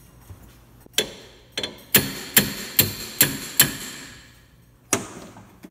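Hammer blows driving a chisel as a wedge into the split collar of the motor sheave's bushing, to spread it and free a seized set screw. About nine sharp metallic strikes: one about a second in, a quick run of about two a second, and a last blow near the end.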